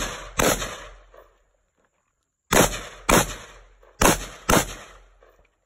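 Rifle fired in three quick pairs of shots: the two shots of each pair are about half a second apart, and the pairs are a second and a half to two seconds apart. Each shot trails off in a short echo.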